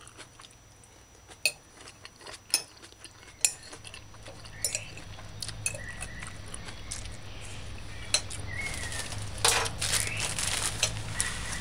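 Metal fork clinking and scraping on a ceramic plate, a few sharp separate clinks about a second apart. A low steady hum comes in partway through.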